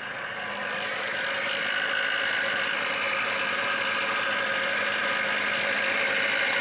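Lada four-cylinder engine idling with a loud knock, its pistons fitted back to front. The knock has developed after driving, and the mechanics wonder whether the pistons have gone that loose. It grows louder over the first two seconds as it is approached at the open bonnet, then holds steady.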